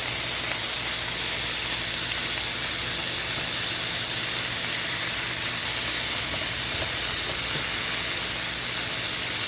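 Bacon slices sizzling steadily in a hot cast iron pan.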